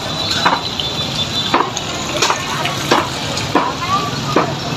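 Busy market ambience: a steady hubbub with irregular sharp knocks about every half second to a second.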